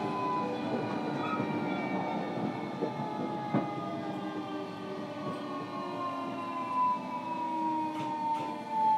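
Interior running sound of a JR Kyushu 305 series EMU in its motor car: the Toshiba permanent-magnet synchronous traction motors and inverter whine in several tones that slowly fall in pitch as the train slows, over a steady rumble of wheels on rail. A single sharp knock comes about three and a half seconds in, and a few thumps near the end.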